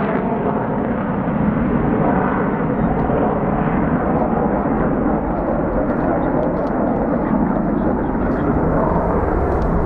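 Lockheed Martin F-35B Lightning II's single F135 jet engine: a loud, steady rumbling roar as the jet climbs away after takeoff.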